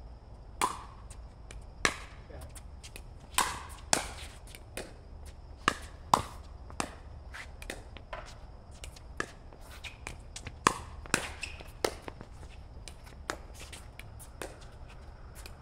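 Pickleball paddles striking a hard plastic ball in play: a string of sharp pops at irregular intervals, some loud and close, others fainter.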